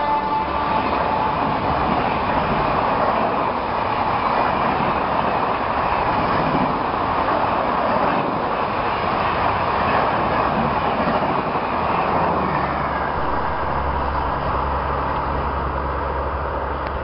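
Express passenger train rushing past at speed: the last of the electric locomotive's horn drops in pitch as it goes by, then the coaches give a loud, steady rush of wheels and air. Near the end the rush eases into a lower, steady rumble.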